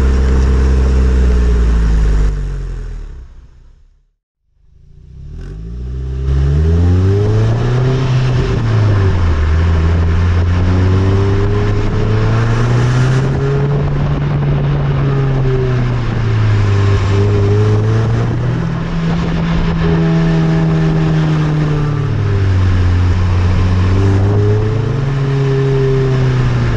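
Nissan Note Nismo S's 1.6-litre four-cylinder engine heard through its stock stainless-steel muffler while driving. The engine note climbs as it accelerates and sinks back as it eases off, again and again. In the first couple of seconds the same car on a Nismo titanium muffler is heard before the sound fades out.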